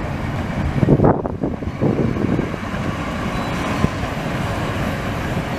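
1907 S-type heritage tram approaching on curved track, its wheels rumbling along the rails. Gusts of wind buffet the microphone in the first couple of seconds, loudest about a second in.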